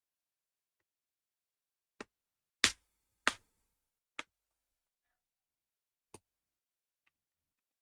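Five sharp taps on the laptop's carbon-fibre case, the two loudest about half a second apart near the middle, tapping the bottom panel down to close up its seams.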